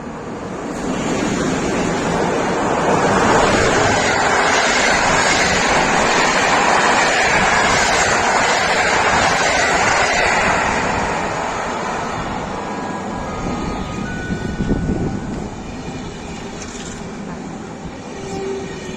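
A train passing by. Its rumble grows loud about a second in, holds for several seconds, then slowly fades. A few brief thin high tones sound as it fades.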